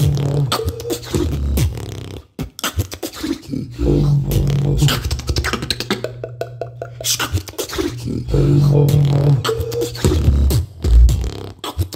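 Two beatboxers performing a tag-team routine: mouth-made kicks, snares and hi-hat clicks in a steady rhythm over held low bass notes. About halfway through, the percussion drops out for about a second under a held bass note, then comes back in.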